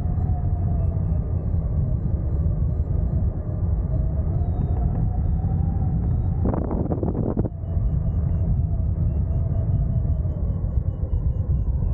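Wind rushing over a camera mounted on a hang glider's wing in flight: a heavy, steady rumble with a wavering whistle above it, and a brief louder gust about halfway through.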